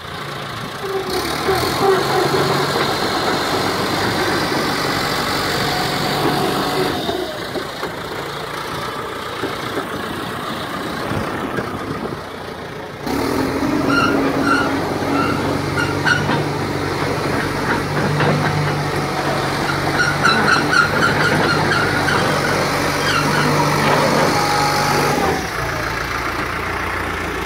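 John Deere 450G LGP crawler dozer's diesel engine running steadily. About halfway through, the sound changes abruptly and gets louder.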